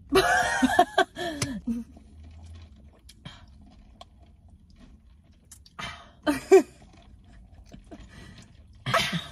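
A burst of laughter at the start, then quiet chewing and sipping through a straw from a McDonald's drink cup, with short vocal sounds about two-thirds of the way in and near the end.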